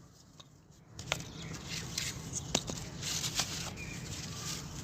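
Hardened cement lumps being handled and scraped: a light rustling crackle with scattered small clicks, starting about a second in after a moment of quiet.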